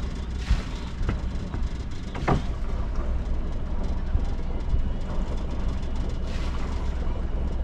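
Sailboat's inboard engine running steadily while motoring out of a marina, a low even rumble, with a few light knocks on deck.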